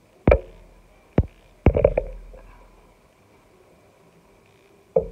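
A few sharp knocks or thumps, each with a short low boom after it: one just after the start, one about a second in, a quick cluster of two or three near two seconds, and one more at the end.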